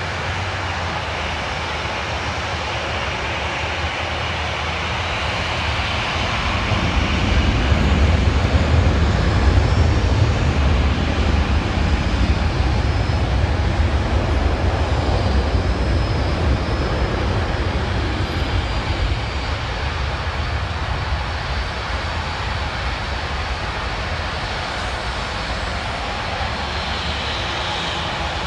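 Airbus A320 jet engines at takeoff power during the takeoff roll. A low rumble builds about six seconds in, is loudest a few seconds later, and then slowly fades, over a steady wash of road traffic.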